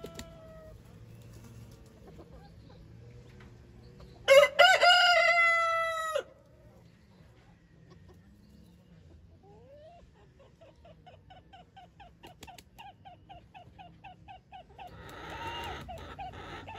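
A Serama bantam rooster crows once, a short cock-a-doodle-doo about four seconds in, the loudest sound. Later comes a fast run of soft clucks, about five a second, and near the end a brief rustle of flapping wings.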